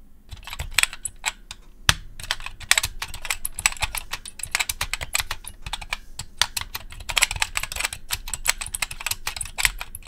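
Fast typing on a keyboard with vintage Futaba linear switches: a dense, irregular run of keystroke clicks. These switches squeak as they are pressed.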